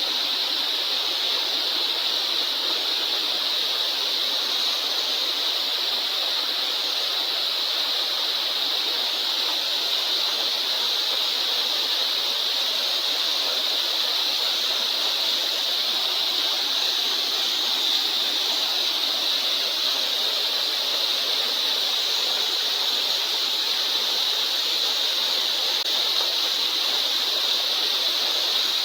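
Waterfall's steady rush of water, an even noise with a strong high-pitched hiss in it that doesn't change.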